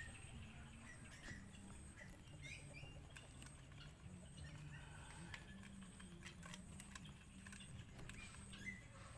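Faint, scattered clicks of a dog eating from a metal bowl, with a few faint short high chirps over a low steady hum.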